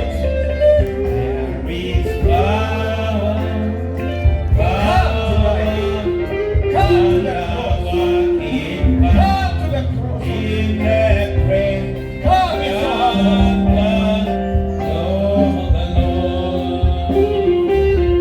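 Gospel worship music: a sung melody over instrumental accompaniment with a steady bass line.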